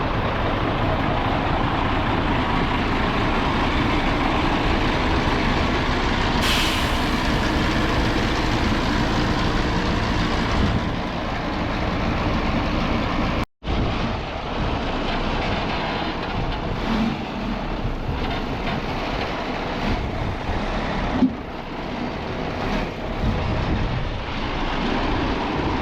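Heavy truck running, a dense, steady engine noise. About halfway through it cuts out for an instant and then resumes.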